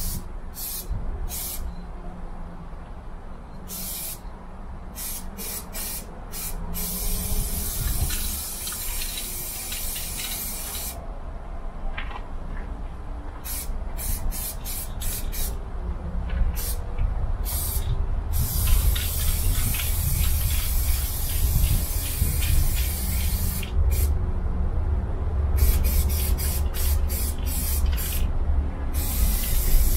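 Aerosol spray-paint can hissing: short quick bursts at first, then several long sprays of a few seconds each, and quick bursts again near the end. A low rumble runs underneath.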